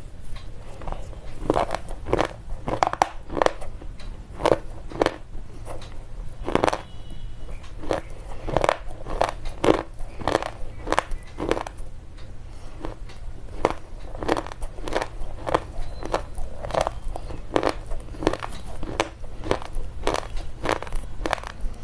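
Slate pencil being chewed, a steady run of sharp crunches at about two a second.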